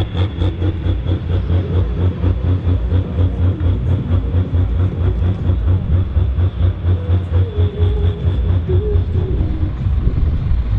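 Fendt Favorit 926 tractor's diesel engine running at low speed with a deep, evenly pulsing exhaust note as it drives off, a thin high whine riding above it.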